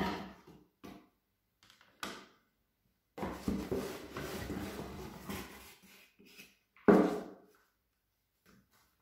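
Hand blender parts and cardboard packaging being handled on a worktop: a few light knocks, a few seconds of rustling and bumping, then one sharp knock about seven seconds in.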